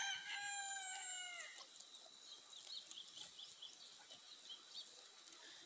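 Rooster crowing: a long call that ends about a second and a half in, its pitch bending down at the close. Faint, short, high chirps follow.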